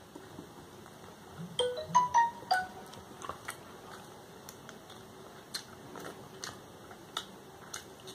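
A phone ringtone or notification jingle: a short run of about four quick, clear notes about a second and a half in. Faint scattered clicks and taps follow.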